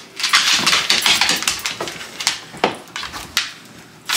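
Dog claws clicking and tapping on a hardwood floor as two dogs shift about: a quick run of clicks in the first two seconds, then a few single taps, with a sharp knock at the very end.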